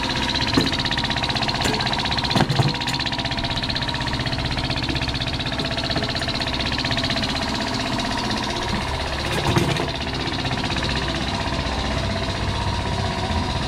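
An engine running at a steady speed, with a few short knocks over it.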